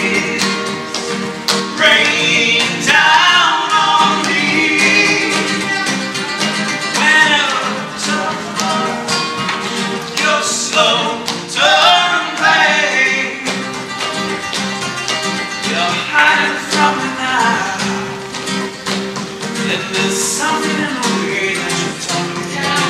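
Live acoustic flamenco-style performance: nylon-string guitar with rhythmic flamenco hand clapping (palmas) and a man singing the melody.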